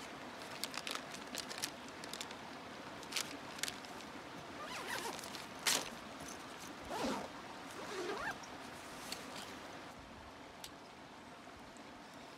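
A few short zip strokes on a backpack zipper, among small clicks and rustles as a plastic packet is handled.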